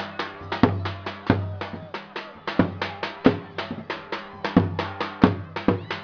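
Live folk dance music: a big drum beating a steady beat, about three heavy strokes every two seconds with lighter strokes between, under a melody held in long notes.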